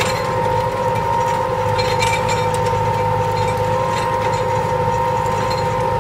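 Erkunt Kudret tractor engine running steadily under load while pulling a mounted plough through the soil, with a steady whine over the engine note. A few light clinks come about two seconds in.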